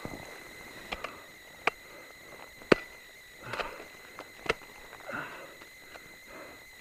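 Ice axe picks striking snow-covered ice, with snow crunching as the climber moves: a series of sharp knocks about a second apart, the loudest nearly three seconds in.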